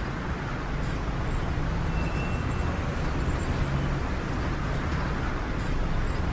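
Street ambience: a steady low rumble of passing traffic.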